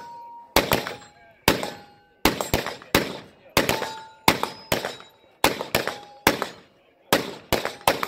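Rapid handgun shots, roughly two a second, with steel targets ringing with a short ping after hits.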